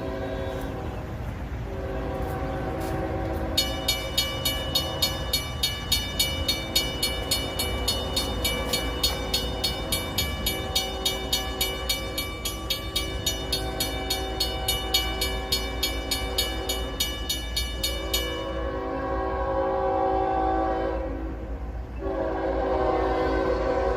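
Freight locomotive's multi-chime horn blowing long blasts with short breaks, while a railroad crossing's electronic bell rings rapidly, about two to three strikes a second, then cuts off suddenly about 18 seconds in.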